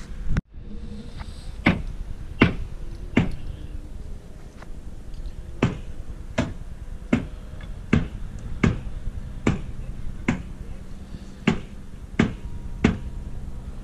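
Footsteps walking at an even pace across wet, rain-soaked ground, each step a sharp click, roughly one and a third steps a second, over a steady low rumble. A brief bump right at the start.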